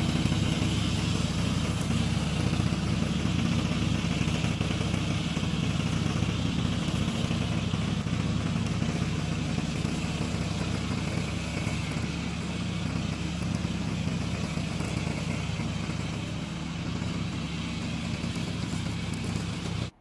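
Engine of a tracked remote-control lawn mower running steadily as the mower drives over grass, a low, even drone.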